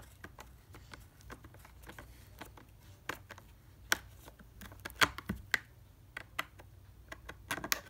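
Hand screwdriver turning a screw into a plastic batting helmet shell to fasten a C-flap: irregular light clicks and ticks, with the sharpest ones about four and five seconds in and a quick cluster near the end.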